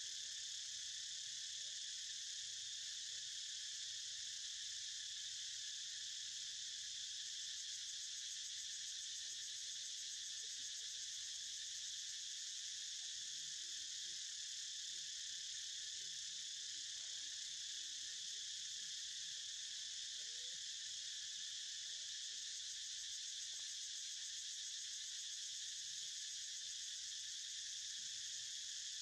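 Steady high-pitched chorus of insects droning without a break.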